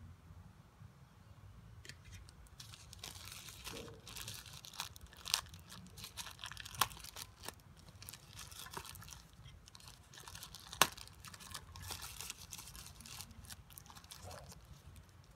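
Thin white paper wrapper crinkling and rustling as it is unfolded and crumpled by hand, with a few sharper crackles along the way.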